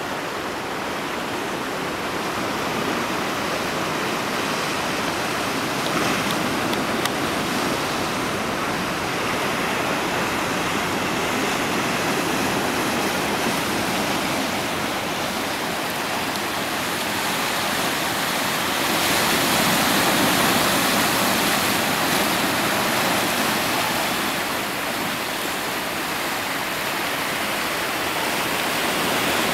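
Sea surf washing over a rocky reef shore: a steady rushing hiss of waves that swells louder about two-thirds of the way through.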